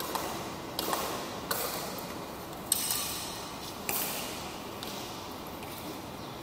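Badminton rally: several sharp racket strikes on the shuttlecock and shoe squeaks on the hard court floor, each echoing in the large hall. The loudest strike comes about three seconds in, with a brief high ring.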